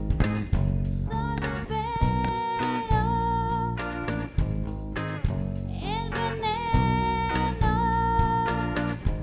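Live rock band playing: drum kit, electric bass and electric guitar, with two long held lead notes with vibrato over the beat, the second sliding up into its pitch.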